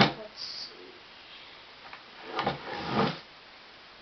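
A sharp plastic knock as an iHome clock speaker dock is handled on a table, then about two seconds in a second of rubbing and clattering as the unit is turned around in the hands.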